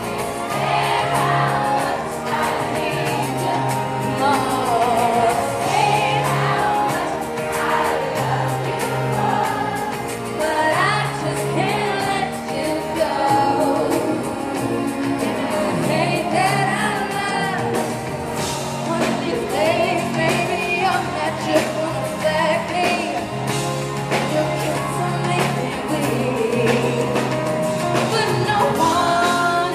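Live pop song: a woman sings lead over backing vocals, acoustic guitar and a repeating bass line, all coming through the venue's speakers.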